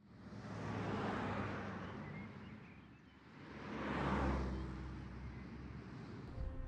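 Two vehicles passing by one after the other, each a whoosh that swells and fades, the second a little louder. Soft music comes in near the end.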